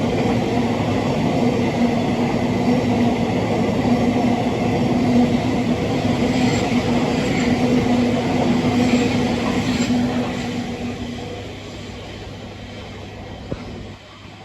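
Class 700 electric multiple unit passing through the station: steady wheel-on-rail rumble with a constant electric hum. The hum dies away and the sound fades over the last few seconds.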